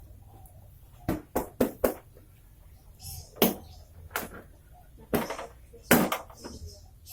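A series of short, sharp knocks or taps at irregular intervals, about nine in all, starting about a second in, over a low steady hum.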